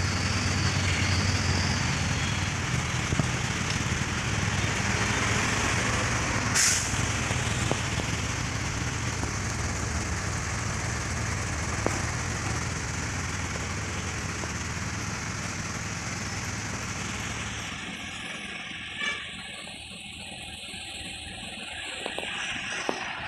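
Steady machine hum with a hiss, which dies away about seventeen seconds in. A short sharp hiss or click comes about six and a half seconds in.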